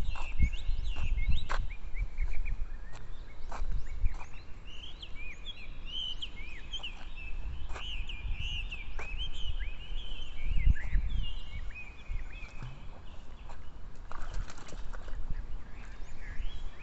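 Many small birds chirping at once, a dense run of short, quick, high calls that sweep up and down in pitch, over a low rumble with scattered clicks.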